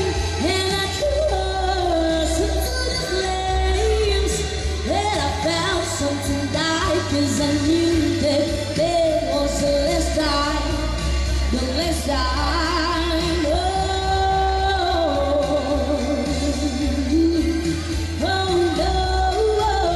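A singer singing a pop song over backing music, with a steady bass underneath.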